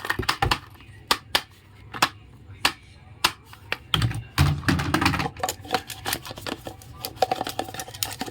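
Small miniature toy kitchen pieces clicking and tapping together as they are handled, in irregular sharp clicks with a denser cluster of heavier knocks about four seconds in.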